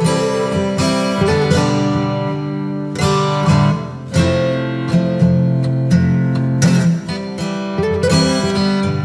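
Background music: acoustic guitar strumming chords with a steady rhythm.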